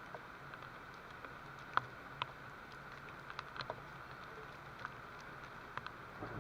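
Steady rain hiss with scattered sharp drops ticking irregularly on a hard surface.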